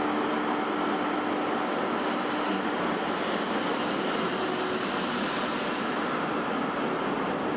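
Twilight Express sleeper train, hauled by an EF81 electric locomotive, running in along a station platform: a steady rumble of wheels and running gear as the cars go past. A low steady hum from the locomotive fades as it passes, about two and a half seconds in. A brief hiss comes about two seconds in and a longer one from about three to six seconds.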